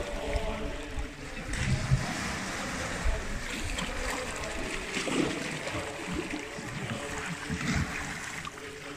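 Small waves washing up a stone slipway and water splashing around an inflatable kayak as it is pushed off through the shallows.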